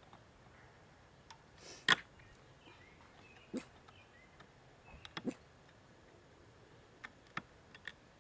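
Sharp clicks and knocks of a lever-type clam shucker's metal blade working into a hard-shell clam against its wooden base. The loudest crack comes about two seconds in, with scattered smaller clicks after it.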